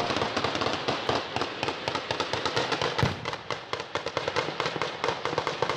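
Sustained exchange of automatic gunfire: rapid shots, several a second and overlapping, continue without a break, with one heavier, deeper bang about halfway through.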